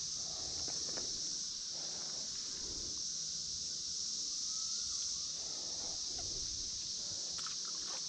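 Steady high-pitched buzzing of an insect chorus. A few soft rustles come through underneath.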